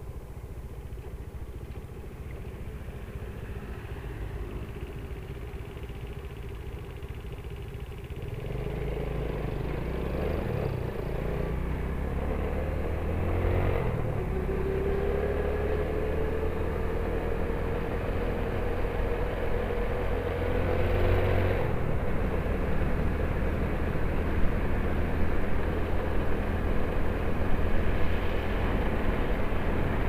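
A motorcycle engine heard while riding, with road and wind rush. It runs fairly quietly at first, then from about eight seconds in grows louder as the bike accelerates, its pitch climbing slowly through the middle.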